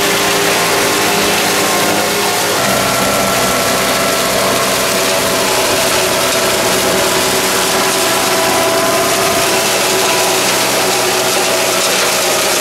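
Becx HS75HR hydraulic hedge-cutting head working through a hedge, with the yellow carrier machine's engine and hydraulics running steadily. The steady machine tones change about two and a half seconds in.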